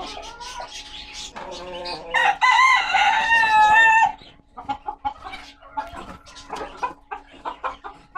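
Gold-laced Polish chickens: a rooster crows once, a loud wavering call about two seconds long starting around two seconds in, with short clucks before and after it.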